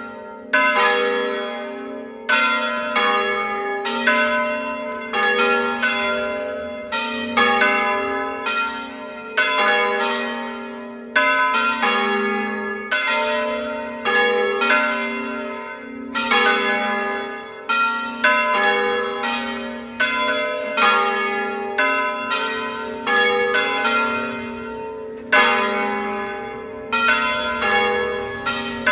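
Three bronze church bells hung in the Veronese system, cast by Cavadini of Verona, swinging on their wheels in a festive peal (a distesa) calling to Sunday Mass. Strokes from the different bells come in an uneven, overlapping sequence, each one ringing on and fading before the next.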